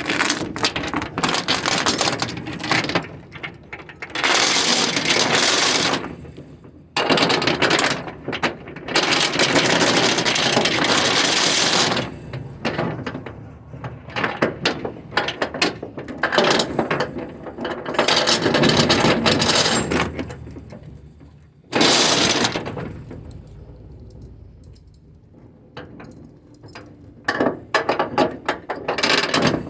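Steel tie-down chain rattling and clinking as it is fed through a skid steer's tie-down points on a flatbed trailer. The clatter comes in several long runs of dense metallic jangling, with quieter pauses between.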